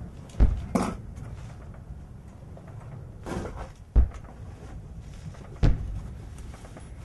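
Three dull thumps a few seconds apart, with short scraping or rustling sounds around the first two.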